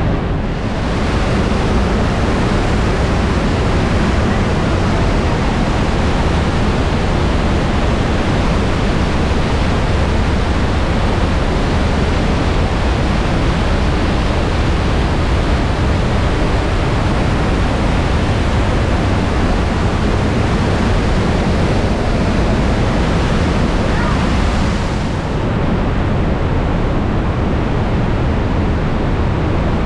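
Trümmelbach Falls' glacial meltwater crashing down through its rock gorge: a loud, steady rush of falling water that dips briefly about a second in and again near 25 seconds in.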